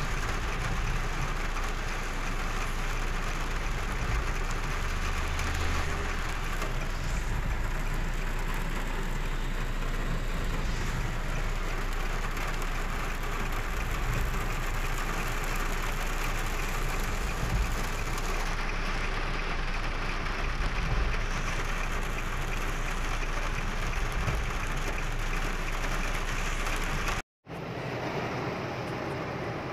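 Heavy rain pelting a car's roof and windshield, heard from inside the cabin while driving, over a steady low rumble of engine and tyres on the wet road. Near the end the sound cuts out for a split second and comes back thinner.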